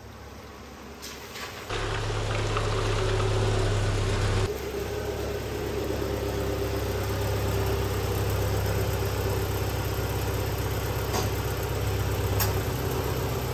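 2010 Subaru Forester's flat-four engine running steadily at low speed as the SUV creeps forward. It comes in abruptly about two seconds in.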